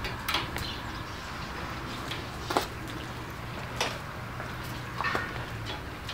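Crossbred dairy cows' hooves knocking on wet grooved concrete as the cows walk, a handful of sharp, irregular knocks over a steady low hum.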